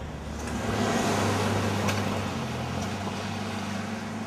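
Vehicle noise: a rushing sound that swells about a second in and slowly fades, over a steady low hum.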